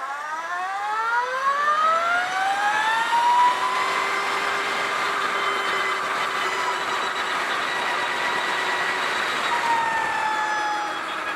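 Energica Eva electric motorcycle's motor and drivetrain whining as it accelerates: the whine rises steeply in pitch over the first three seconds or so, holds steady, then dips near the end, over a steady rush of wind.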